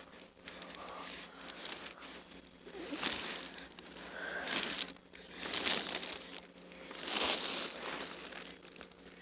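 Irregular rustling and crinkling that comes in several swells, loudest about seven seconds in.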